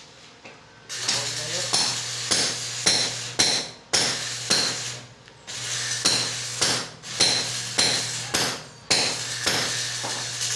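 Stick (shielded metal arc) welding: the arc crackles and spits over a steady electrical buzz. It strikes about a second in and breaks off and restrikes a few times.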